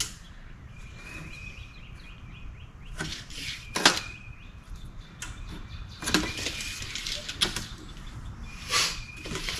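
Quiet handling of a steel tape measure as its blade is pulled out and held along a wooden board, with a few soft clicks and taps. A faint thin high tone comes and goes.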